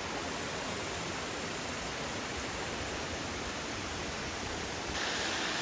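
Steady rushing noise with no distinct events, becoming a little louder and brighter about five seconds in.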